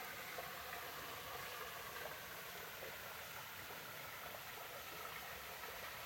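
Steady, faint hiss of background noise with no distinct events.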